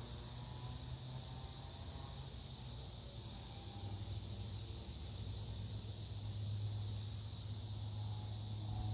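A 1998 Hunter Original ceiling fan's oil-bath motor running on a variable speed control, giving a steady low hum that grows louder about four seconds in, over a steady high hiss.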